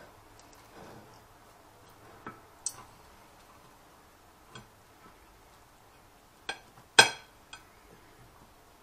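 Steel knife and fork clinking and scraping against a ceramic plate while cutting roast goose meat: a handful of scattered sharp clinks, the loudest about seven seconds in.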